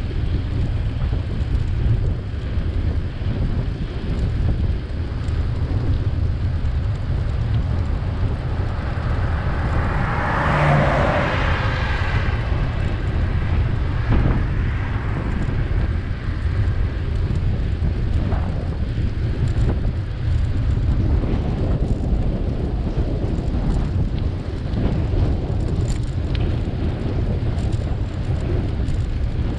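Steady low wind rumble on the microphone of a camera riding along on a bicycle. A vehicle passes with a rush of noise for about two seconds, around ten seconds in.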